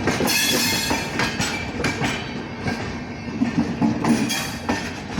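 LHB passenger coach wheels running over rail joints at speed, a loud 'tadak tadak' clatter of sharp clicks over a steady rumble of wheels on track.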